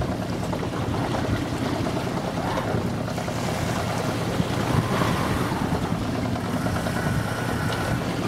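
Wind buffeting the microphone and water rushing and splashing along the hull of a small sailboat under way, a steady noise with no break.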